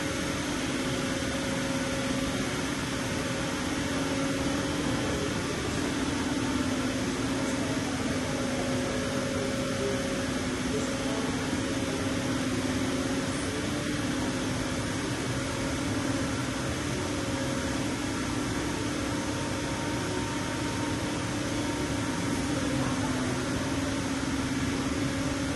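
Steady electrical and mechanical hum of a powered-up OMV MAV 420 CNC bed-type milling machine: a low drone with a fainter higher tone over an even hiss, slowly swelling and fading a little.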